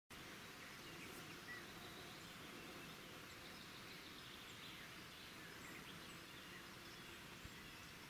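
Faint outdoor ambience with a few distant bird chirps.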